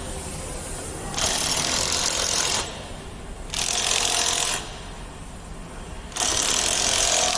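Heavy steel bending mold being slid and fitted into its holder on a double J hook wire-bending machine, metal scraping on metal. It comes in three hissing bursts, each about a second long, a little over a second apart.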